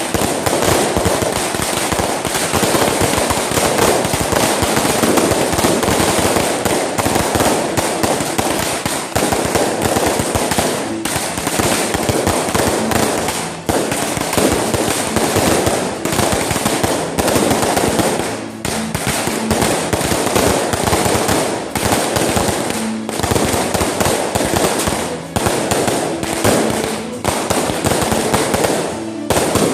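Fireworks going off in a dense, continuous barrage of bangs and crackles, with a few brief lulls.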